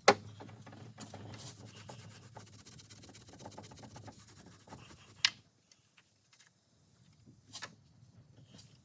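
Small air tool with a Scotch-Brite pad scuffing the carburetor mounting surface of an intake manifold: a low steady hum with scratchy rubbing for about five seconds, ending in a sharp click, then a few faint knocks.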